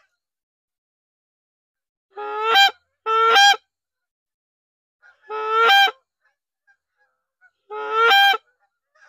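Canada goose honks: four loud, separate calls, each about half a second long, spaced one to two and a half seconds apart.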